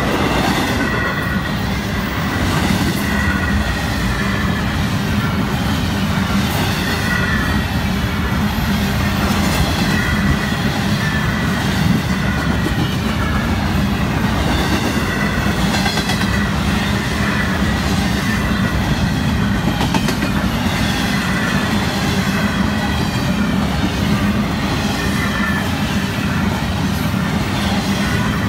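Freight cars of a Florida East Coast Railway intermodal train rolling past: a steady, loud rumble of steel wheels on the rails, with a thin, wavering high squeal from the wheels above it.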